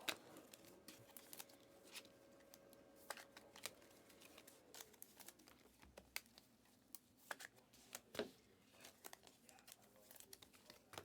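Faint handling of trading cards and pack wrappers: scattered soft clicks, slides and crinkles as cards are flipped through and packs are opened.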